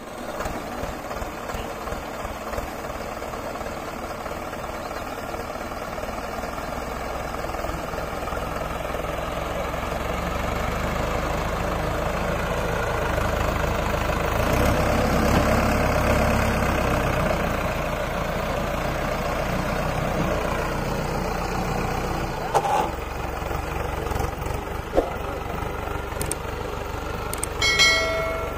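Diesel tractor engine running steadily, growing louder around the middle and then easing back. Near the end there is a short beep.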